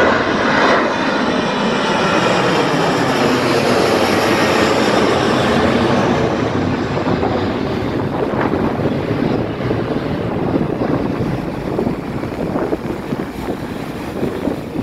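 Boeing 737-800's CFM56 turbofan engines at takeoff thrust, a loud jet roar as the airliner climbs away. It is loudest in the first few seconds and slowly fades as the plane recedes.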